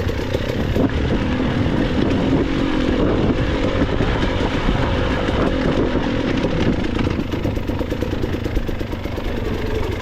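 Enduro dirt bike engine running on an off-road trail, its pitch rising and falling with the throttle.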